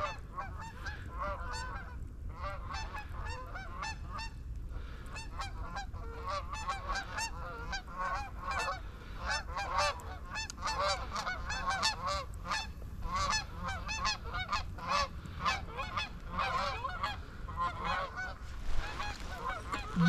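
A flock of Canada geese honking, many calls overlapping and continuing throughout, over a steady low rumble.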